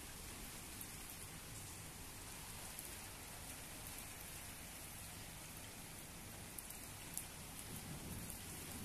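Heavy rain falling steadily on a wet concrete terrace floor, an even hiss with a few faint drop ticks.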